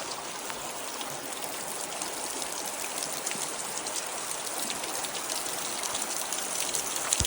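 Creek water running in a steady rush, with scattered small drips and splashes.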